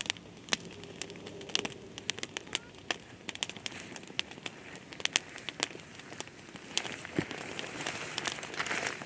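Irregular sharp crackling and clicking, with a faint voice briefly about a second in and a hissing rustle building near the end.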